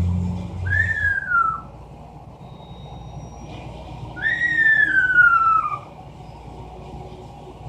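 Amazon parrot imitating a falling-bomb whistle: two descending whistles, a short one near the start and a longer one about four seconds in.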